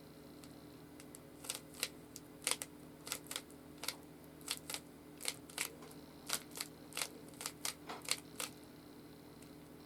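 Rubik's Cube being twisted by hand: a run of sharp clicks and clacks as its layers turn, about three a second, starting about a second and a half in and stopping near the end.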